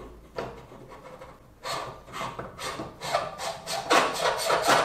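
Camera being screwed by hand onto the threaded adapter of a Celestron RASA 8-inch astrograph: repeated rasping scrapes of the threads, about three a second, starting about a second and a half in and growing louder.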